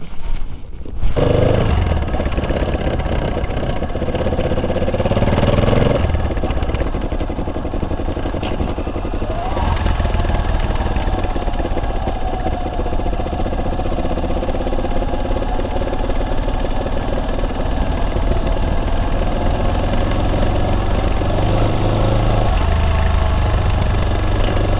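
Yamaha Serow 250's air-cooled single-cylinder engine under way: revs climb for a few seconds and drop at a gear change about six seconds in, drop again near ten seconds, then the engine settles into steady cruising revs.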